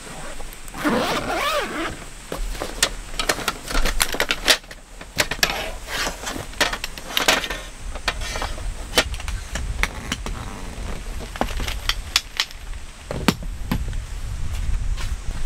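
Gear being handled: a canvas bag rustling and being pushed into a plastic storage box, with many sharp knocks and clicks, then a metal table frame being lifted and moved near the end. A low wind rumble on the microphone sits under it all.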